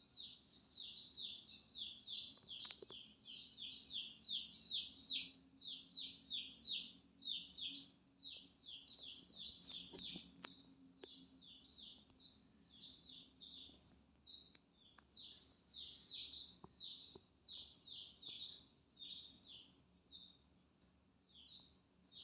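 Chicken chicks peeping: a fast, unbroken series of short, falling peeps, about three or four a second, that thins out over the last few seconds. The falling shape is typical of chick distress calls.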